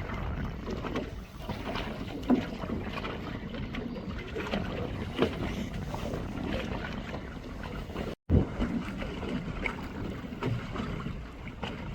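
Wind buffeting the microphone on a small boat at sea, over a low, rough rumble of the boat and water, with a few faint knocks.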